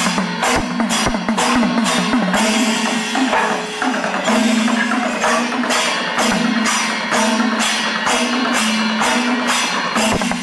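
Percussion-led music with jingling, cymbal-like strokes about three times a second over a sustained low tone; the strokes thin out briefly before the middle.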